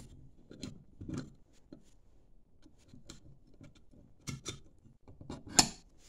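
Steel flap on a bolted hinge being worked open and shut on a piece of rectangular steel tubing: scattered light metal clicks and clanks, the loudest about five and a half seconds in.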